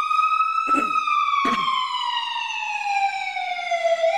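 Ambulance siren in a slow wail: one long tone rises to its peak just under a second in, then falls slowly for about three seconds and starts to rise again near the end. Two short knocks sound about a second in and a second and a half in.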